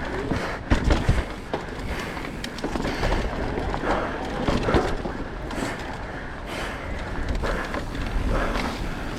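E-mountain bike riding over a rough dirt trail: continuous tyre and rattle noise with a few sharp knocks about a second in.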